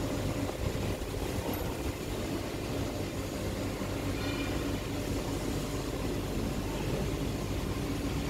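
Steady low mechanical hum and rumble of an EDM machine, with no change in pitch or level.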